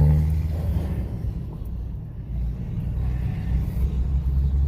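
Pickup truck engine running low and steady as the truck rolls slowly; it eases off briefly about two seconds in, then picks up again.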